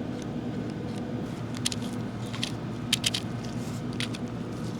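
Sharp plastic clicks from a pipette and its ClipTip pipette tips, about five in all, two of them in quick succession near the middle.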